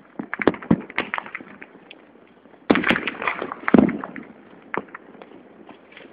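Firecrackers and fireworks going off in quick, irregular pops and cracks, with a dense cluster of bangs about three seconds in and scattered single cracks after it.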